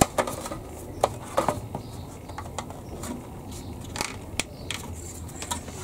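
Hard plastic of a 1/16 scale tank model hull being handled and turned over on a workbench: a sharp click at the start, then a handful of lighter clicks and taps.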